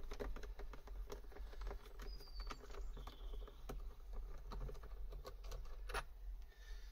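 Quick, irregular small clicks and taps of a screwdriver turning a small screw out of a car's plastic door trim panel, with hands handling the trim, and a sharper knock about six seconds in.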